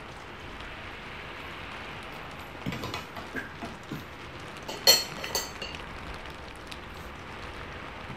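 Steady hiss of rain, with a few light clinks and taps of eating utensils on a plate and pan, the sharpest clink about five seconds in and another just after.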